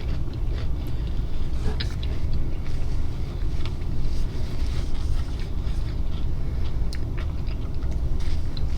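Eating sounds from biting into and chewing a taco: scattered small crunches and clicks. Under them runs a steady low rumble, which is the loudest sound.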